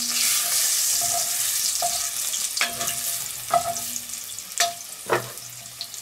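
Clarified butter sizzling in a hot cast-iron Dutch oven over charcoal while a wooden spatula stirs and scrapes the pot, knocking against the iron about six times. The sizzle eases a little toward the end.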